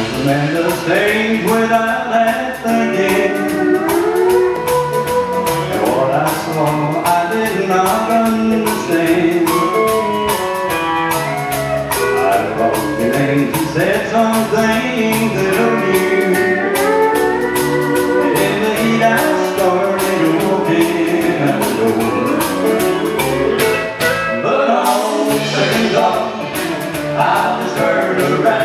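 Live country song: a man sings lead while strumming an acoustic guitar, backed by a band with electric guitar and drums. The bass drops out for a moment about three-quarters of the way through.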